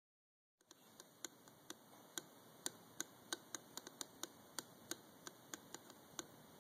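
Faint, fairly even ticking, about four ticks a second, from a worn axle carrier bearing on a Toyota 3S-GTE drive axle. Its outer race has come loose from the inner race, which the owner believes sets up a vibration that his knock sensor reads as knock.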